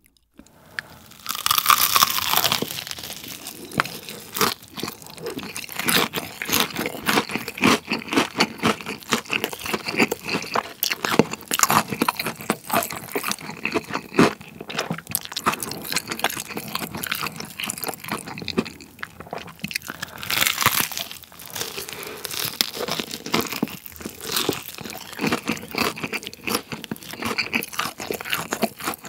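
Close-miked crunching and chewing of a fried chicken drumstick coated in spicy cheese seasoning powder. There are big crunchy bites about two seconds in and again about twenty seconds in, with wet chewing and crisp crackles in between.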